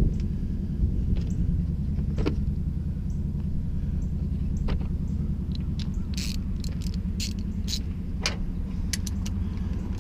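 Metal tool clicks as sockets are picked out of a plastic socket-set case and a socket is snapped onto an extension, a dozen or so sharp clicks scattered through, more of them in the second half, over a steady low rumble.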